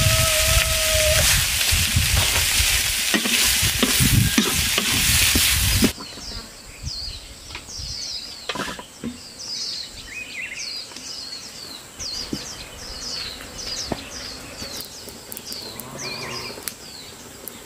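Greens and meat stir-frying in a black wok, sizzling hard as a wooden spoon turns them. The sizzle cuts off suddenly about six seconds in, leaving a bird chirping over and over in short, falling chirps.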